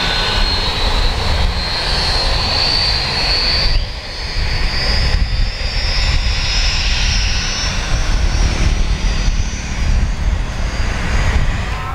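Avro RJ85's four Honeywell LF507 turbofan engines running at taxi power: a steady high-pitched whine over a low rumble, the whine rising slightly in pitch over the first four seconds, with a brief dip in loudness about four seconds in.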